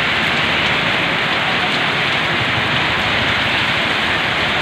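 Heavy rain pouring steadily, a dense even hiss of rain on the street and a roof close overhead, with water streaming off the roof edge.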